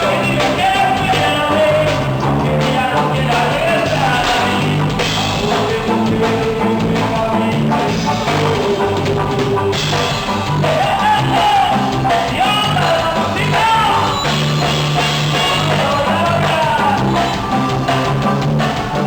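Duranguense band music: a steady repeating bass line and drums under a bending melodic line.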